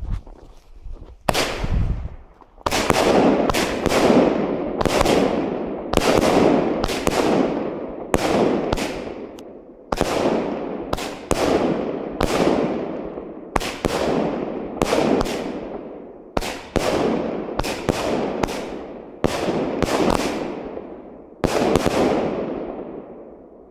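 Jorge Samuraj 19-shot, 25 mm consumer firework battery firing its shots one after another, about one a second, each a sharp bang that fades over about a second. The last shot goes off about two seconds before the end and dies away.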